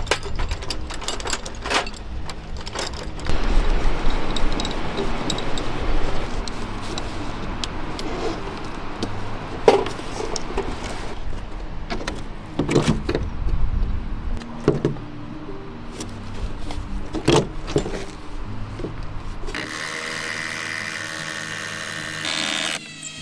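Formwork assembly: metal form-tie separators with plastic P-cones clinking as they are handled from a metal box, and repeated sharp knocks of wooden form panels and fittings being set against the wall. A steady whirring sound near the end.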